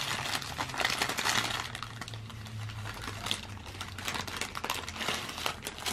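Paper fast-food burger wrapper crinkling and crackling as it is peeled open by hand, in irregular quick crackles.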